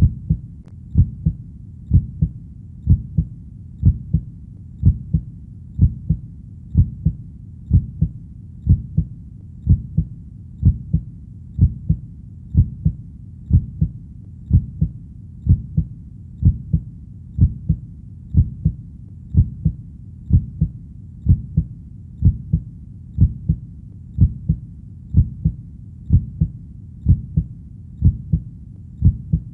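Heartbeat: steady lub-dub double thumps, deep in pitch, repeating about once a second.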